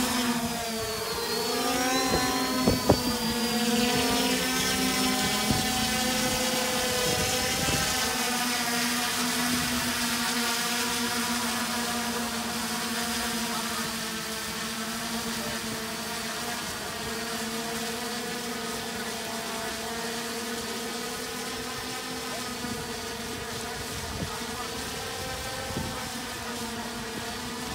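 Electric lift motors and propellers of a homemade X-UAV Talon VTOL drone spinning up with a rising whine and lifting off, then a steady multi-tone buzz as it hovers. A few sharp clicks come about three seconds in. The buzz eases off gradually as the drone climbs away.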